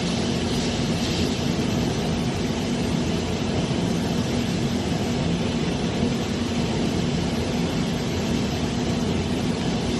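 Steady machine-shop noise from a double-head vertical lathe running: an even mechanical noise with a low hum.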